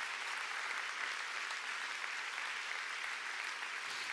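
A large audience applauding, a dense, steady clapping that holds at an even level.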